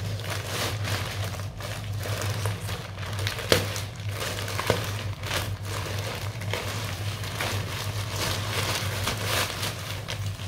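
Plastic mailer bag crinkling and rustling as it is torn open and handled, with two sharper snaps near the middle.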